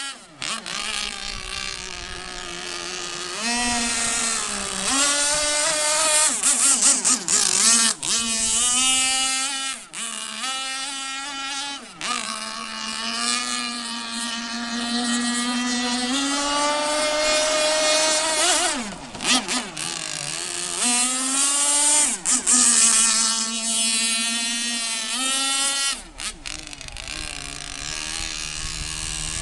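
Tuned Zenoah G290 two-stroke petrol engine of an RC offshore monohull racing boat running at speed. It repeatedly revs up and eases off, its pitch sweeping up and down as the boat runs and turns, with brief drops in the sound as the throttle is let off.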